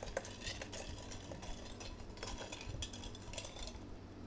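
Bar spoon stirring ice cubes in a tall highball glass, a fast run of light clinks of ice and metal on glass that stops shortly before the end.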